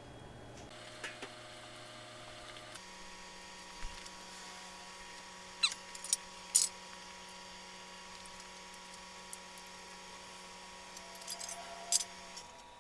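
A few short, sharp clicks and taps of hand work on the engine, clustered in the middle and near the end, over a faint steady hum.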